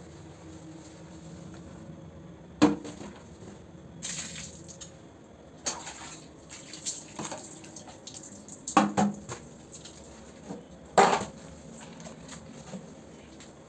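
Bathroom cleaning in a small tiled room: about four sharp knocks and clatters of hard objects a few seconds apart, the loudest near the end, with a short rush of water about four seconds in.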